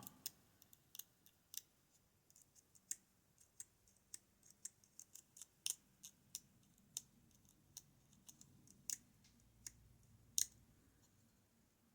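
Faint, irregular small clicks and ticks of the gutted lock's small metal parts being handled and felt over by hand.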